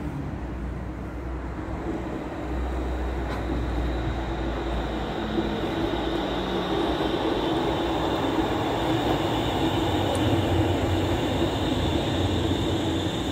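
Hannover Stadtbahn tram (Üstra TW 3000, two coupled units) pulling into a stop along the platform. Its rolling and motor noise builds as it comes close, with a steady high whine growing stronger through the second half.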